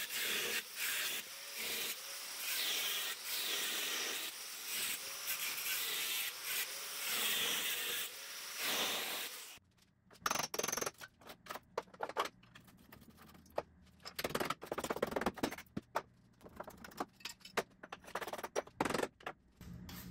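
Angle grinder with a cut-off disc cutting into the rusted steel frame rail of a Triumph TR6, stopping abruptly about nine and a half seconds in. After that come irregular sharp metal knocks and taps as a hammer works at the cut section.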